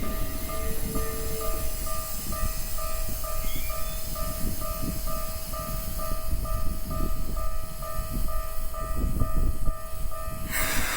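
Japanese railway level-crossing warning bell ringing in a steady electronic clang about twice a second, while an electric train rumbles over the crossing. A short burst of hiss comes near the end.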